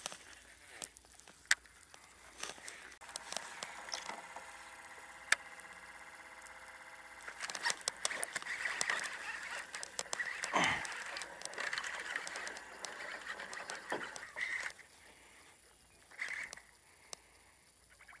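Baitcasting reel being cranked to retrieve a chatterbait and bring in a hooked bass: a steady whirring of the reel's gears, louder and rougher for several seconds in the middle while the fish is on, with scattered clicks around it.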